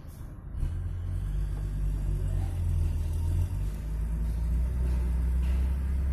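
Hino Ranger truck's diesel engine running at low, steady speed: a deep, loud hum that starts abruptly about half a second in, its pitch dipping slightly a little past halfway.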